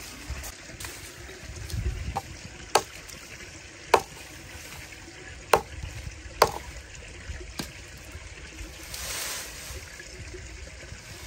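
Axe chopping dry branches: four sharp strikes in the middle, with a couple of lighter knocks, then a rustle of dry leafy brush near the end.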